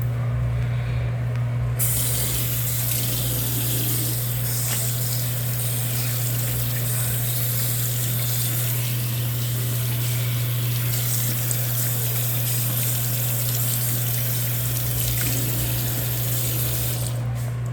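Electric hand dryer, taken for a Fastdry HK-2200RAS, blowing: a steady rushing of air that starts about two seconds in and cuts off shortly before the end.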